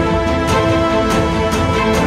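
Background music with a steady beat: drum hits about twice a second over held notes.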